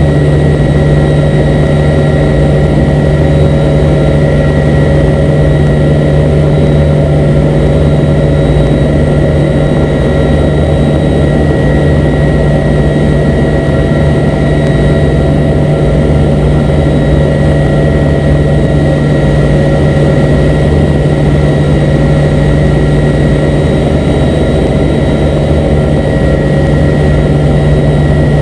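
Steady drone of a C-2A Greyhound's twin turboprop engines and propellers heard inside the cockpit, a loud unchanging hum with a strong low tone, during a carrier landing approach.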